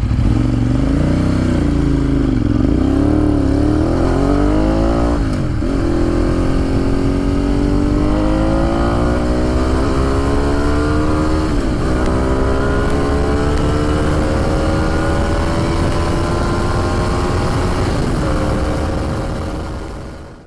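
Motorcycle engine on the move, heard from the rider's seat. The pitch wavers with the throttle at first, then climbs steadily, dipping briefly at several upshifts as the bike accelerates through the gears, over wind and road noise. It fades out at the end.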